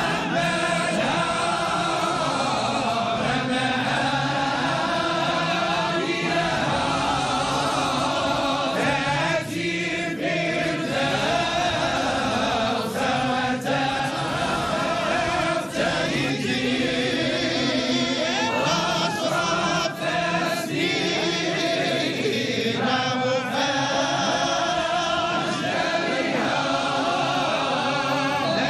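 A group of voices chanting Islamic devotional praise poetry (amdah nabawiya) together in sustained melodic lines.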